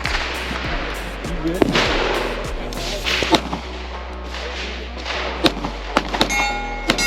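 Gunshots on a firing range, single shots a second or two apart, each followed by a long echoing tail, with a quicker cluster of shots near the end. After the last shots, struck steel targets ring. Background music plays underneath.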